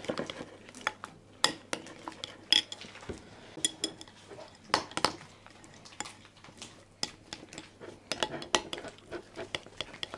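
A utensil stirring glue and liquid soap in a plate, scraping and clicking irregularly against the plate as the slime base is mixed.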